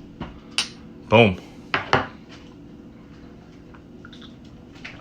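A few sharp clinks and knocks of hard objects handled on a table, about four in the first two seconds. A man exclaims "Boom" just over a second in.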